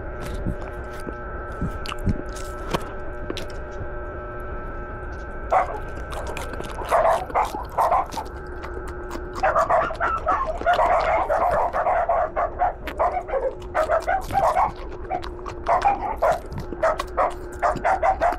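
Mouth noises of chewing raw alugbati (Malabar spinach) leaves, sharp crunchy clicks, with a dog yipping and whining in dense runs of short yelps from about halfway through.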